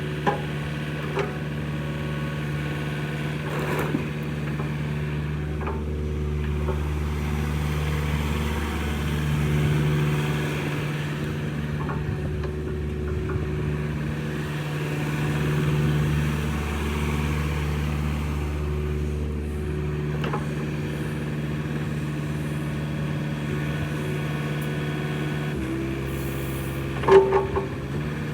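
Takeuchi TB240 mini excavator's Yanmar 4TNV88C diesel running steadily, swelling slightly twice. Its pitch shifts a little near the end. A few knocks are heard, the loudest one near the end.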